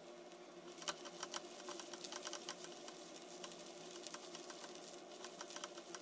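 Chopped onions frying in hot oil in a nonstick pan, sizzling with dense, irregular crackles and small pops that thicken about a second in, while a silicone spatula stirs them. A steady hum runs underneath.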